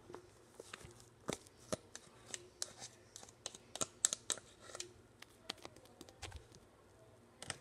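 Slime being squished and pulled from a plastic cup onto a surface, giving a run of irregular sticky clicks and crackling pops, busiest around the middle.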